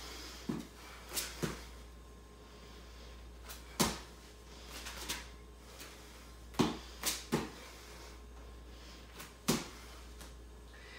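Bare hands and feet thudding on a rubber floor mat during burpees with a jump: short sharp thumps, some in quick groups of two or three, every few seconds.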